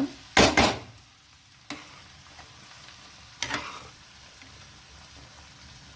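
A cooking spoon stirring and knocking in a pan of cauliflower and vegetables cooking in gravy: two sharp knocks about half a second in and another about halfway, over the pan's faint steady sizzle. The vegetables are not quite done.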